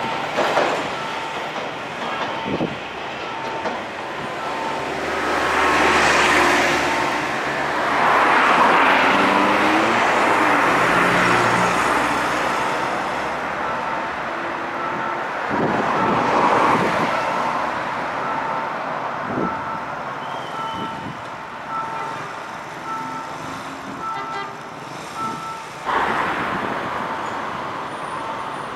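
Level-crossing warning signal beeping in an even two-tone pattern while a CSR electric multiple unit runs past on the rails, with repeated swells of wheel and rail noise.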